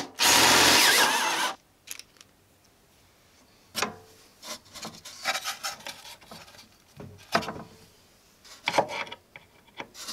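Ryobi cordless drill boring out a bolt hole in a model plane's wooden firewall, running hard for about a second and a half and then stopping suddenly. Scattered light knocks and rubbing follow as the parts are handled.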